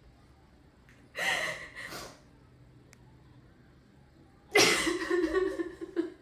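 A woman crying on cue: a sharp sobbing gasp about a second in, then a longer sob with her voice in it near the end.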